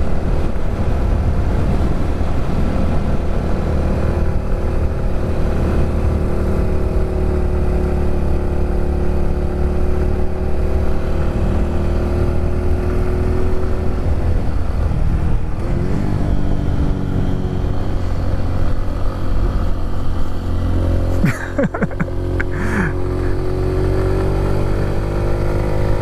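Honda Pop 110i motorcycle's small single-cylinder four-stroke engine running steadily on the road, with wind noise on the microphone. The engine note dips and climbs again about two-thirds of the way through.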